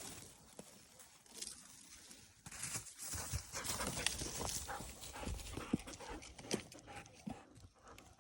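A dog panting and moving about, with irregular soft steps and scuffs.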